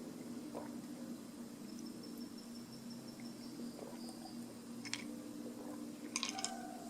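Night nature ambience: a thin, high, steady trill like a cricket's over a steady low hum, with a few short sharp clicks near the end.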